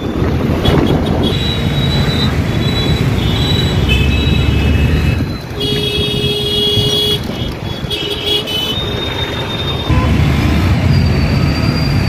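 Several vehicle horns honking in congested street traffic, a few seconds of overlapping honks followed by a long loud blast and shorter toots, over the steady rumble of engines.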